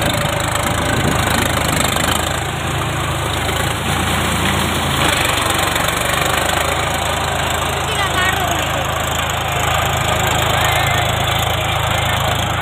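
Kushal tractor's diesel engine running steadily under load as its rear rotary tiller churns through wet paddy mud, a dense noisy rush over the engine's low drone.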